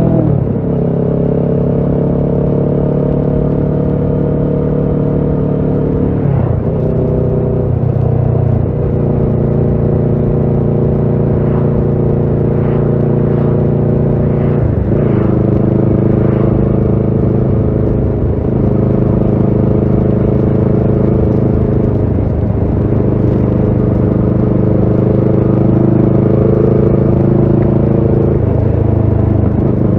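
Kawasaki Ninja 650 parallel-twin engine through a Shark SRC-4 full exhaust system, running under way at a fairly steady engine note. The pitch shifts briefly several times, at about six, fifteen and eighteen seconds in.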